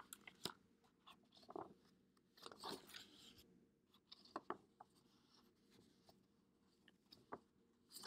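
Near silence with a few faint rustles and clicks of a hardcover picture book's paper pages being handled and turned.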